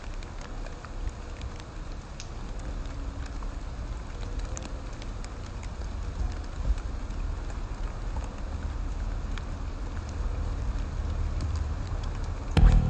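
Rain falling on wet pavement and leaves: a steady hiss with scattered drip ticks, over a low rumble.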